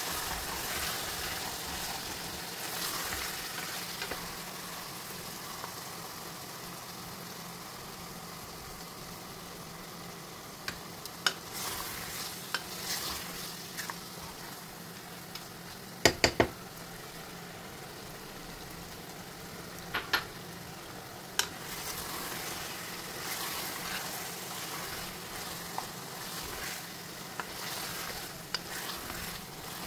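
Chicken curry sizzling in an aluminium pressure-cooker pot as it is stirred with a wooden spoon. Now and then the spoon knocks sharply on the pot, with a quick cluster of three knocks about halfway through.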